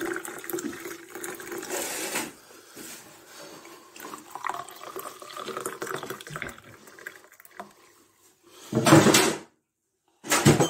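Liquid being poured into china teacups, with two short loud noises near the end.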